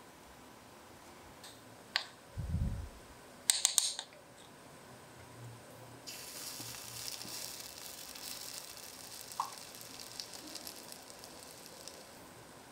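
Pancake batter sizzling in a small hot cast-iron skillet, a steady hiss that starts about halfway through and runs on. Before it, a few light clicks of a spoon against the glass batter bowl.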